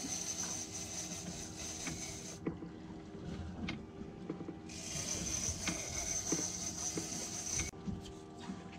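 Fishing reel being cranked hard against a fish on the line, a fast high whirring rattle of the reel's gears. It comes in two spells, stopping about two and a half seconds in, starting again about five seconds in and stopping near the end.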